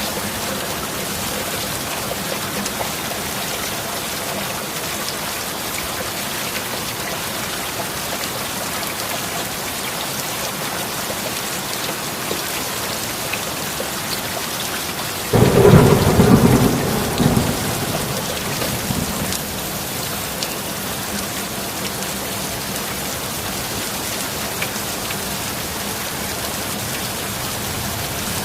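Steady heavy rain, with one sudden close thunderclap about halfway through that starts sharply and rumbles away over a few seconds.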